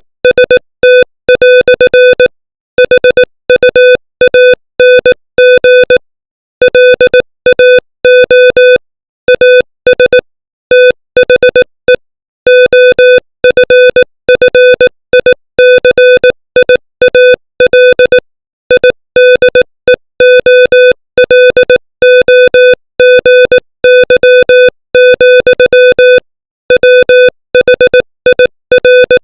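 Morse code sent at 18 words per minute: a single mid-pitched, buzzy electronic tone keyed on and off in short and long beeps, with longer pauses between words.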